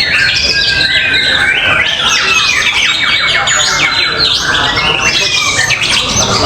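Several caged songbirds singing at once in a songbird contest: fast, overlapping runs of rapid chirps, trills and mimicked calls, with a low murmur of background noise underneath.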